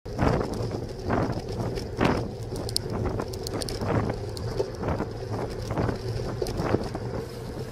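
Bicycle riding along a road, picked up by a camera mounted on the bike: wind on the microphone and rolling tyre noise, with a dull knock about once a second.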